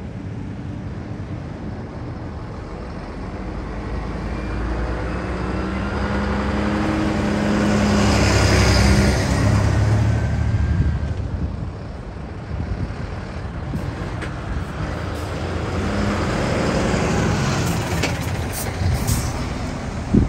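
Large diesel trucks driving past one after another, engine sound swelling and fading as each passes, loudest about halfway through and again later. Short sharp air-brake hisses near the end.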